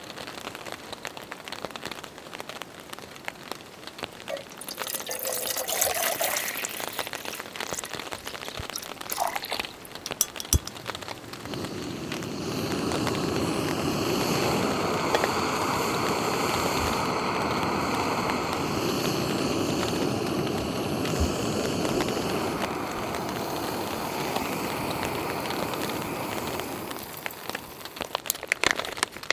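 Light rain pattering. About eleven seconds in, a canister gas stove burner catches and burns with a steady hiss under a metal pot of water. It cuts off a couple of seconds before the end.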